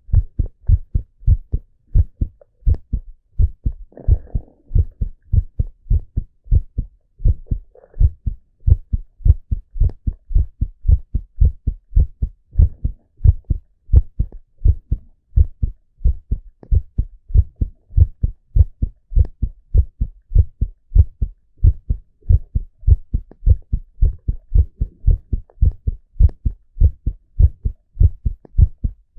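A man's heartbeat heard close up at the chest: a steady, even run of low thumps. There are brief faint rustles about four and eight seconds in.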